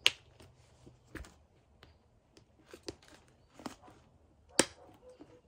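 Tory Burch Miller leather shoulder bag's magnetic flap closure clicking shut as the flap is lifted and pressed down. There are two sharp snaps, one at the very start and one about four and a half seconds in, with softer clicks and leather handling noise between them.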